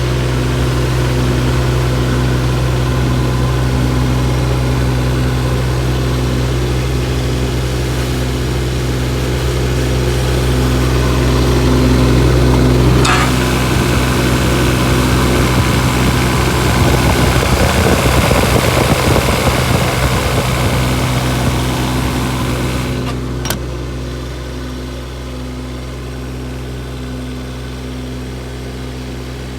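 Kubota KX016-4 mini excavator's three-cylinder diesel engine running steadily. A sharp click comes about a third of the way in, then about ten seconds of louder, rougher running with a hiss. Another click follows, and the engine settles back to a quieter steady run.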